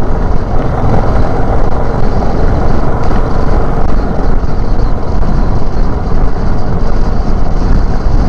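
Royal Enfield motorcycle running at highway speed, its engine under a steady rush of wind on the microphone.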